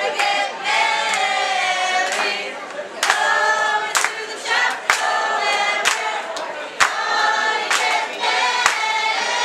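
A roomful of people singing a tune together in long held notes, with sharp claps keeping the beat about once a second.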